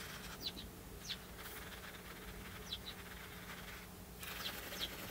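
Faint scratching of a lead holder's graphite lead rubbed sideways across sketchbook paper to shade, pausing twice. Short high chirps sound about once a second over it.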